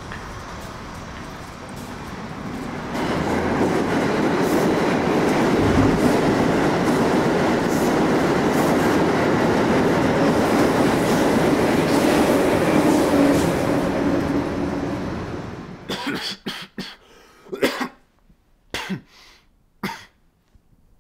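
A steady rushing rumble that swells about three seconds in, holds, and fades out near the end, followed by a few short, sharp sounds.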